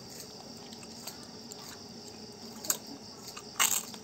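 Two loud crunching bites into a crisp fried cracker near the end, over a steady high chirring of insects.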